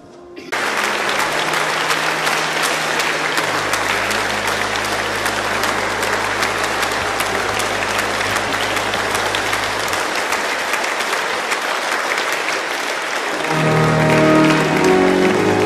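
Congregation applauding, breaking out suddenly about half a second in and keeping up steadily. Under it an organ holds low notes, then comes in with a louder, fuller chord near the end.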